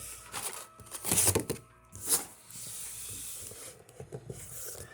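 Bubble wrap and packaging rustling and rubbing as a box of comics is unwrapped: a few short scrapes, a steadier hiss a little past two seconds in, and small crackles near the end.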